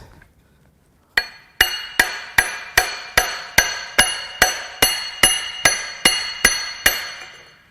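Hammer blows on the crankshaft pulley of a BMW S52 engine, about fifteen strikes at roughly two and a half a second, each with a ringing metallic clang, knocking the pulley loose.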